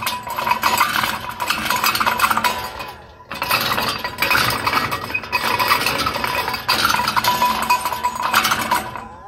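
Playground play-tractor steering wheel spun fast by hand, giving a continuous rapid clicking clatter with a brief pause about three seconds in.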